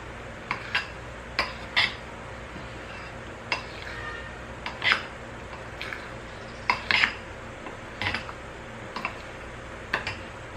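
A utensil knocking and scraping against a mixing bowl as pancake batter is folded, in irregular short strokes about once a second.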